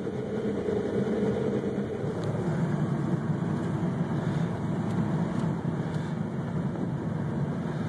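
Tow truck engine running steadily, heard from inside the cab.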